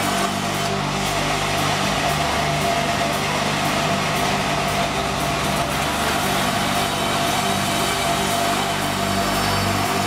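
Sawmill band saw running steadily while its blade cuts lengthwise through acacia wood, a continuous even machine drone with a constant hum.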